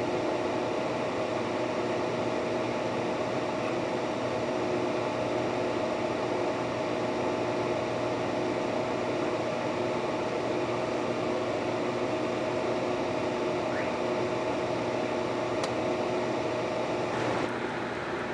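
A small electric motor runs steadily, giving a constant whirring hum with a fixed whine, until it drops away about 17 seconds in.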